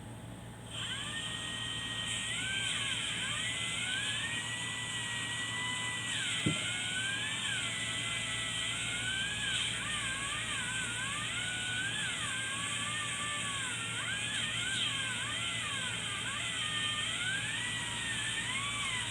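Angle grinder running with a whine that glides up and down in pitch as its load changes, with one sharp knock partway through.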